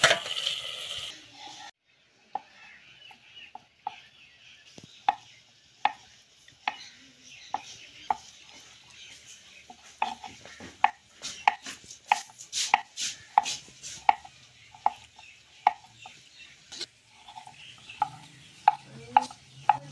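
Knife chopping peeled boiled potatoes on a wooden cutting board: sharp knocks of the blade on the board, slow and even at first, then quicker, about two or three a second, in the second half.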